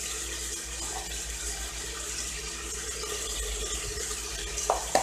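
Ribs sizzling in oil with onion and garlic in an open aluminium pressure cooker pot, a steady frying hiss. Two short knocks near the end.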